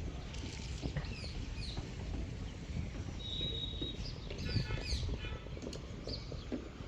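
Small birds chirping with many short, high, down-slurred calls, one held high note about halfway through and a rapid trill a little later, over a steady low rumble.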